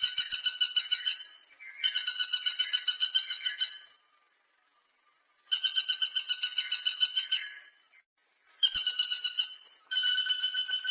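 Woodpecker calling: trains of rapid, evenly repeated high-pitched notes, about ten a second. Each train lasts one to two seconds, with short pauses between them, and there are five trains in all.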